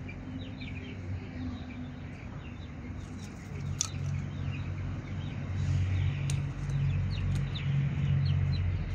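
Small birds chirping in short, quick calls, with a low engine hum that comes in about three seconds in and grows louder toward the end.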